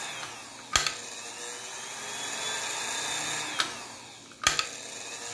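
Electric sewing-machine motor whirring under its foot pedal, building up and then dropping away about four seconds in, with a few sharp clicks. This is the intermittent fault where the motor loses speed and runs too slowly to turn the machine.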